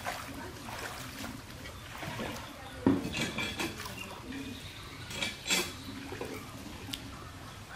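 Hands digging and splashing in shallow muddy water, with a handful of short wet slaps and squelches. The loudest slap comes about three seconds in, and a few more follow over the next four seconds.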